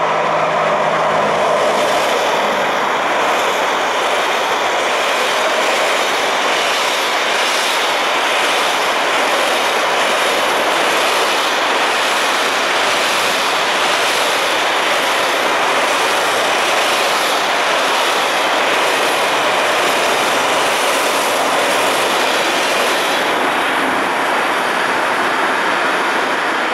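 Electric locomotive hauling a freight train of covered hopper wagons passing close by. The locomotive goes past at the start, then the long line of wagons rolls by with steady wheel-on-rail noise and faint, evenly spaced clicks.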